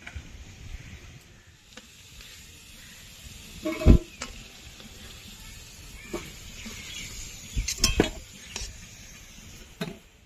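Hot oil sizzling in a metal kadai as fried potato pieces are lifted out, with a metal spatula knocking and scraping against the pan and a steel plate a few times, loudest about 4 and 8 seconds in.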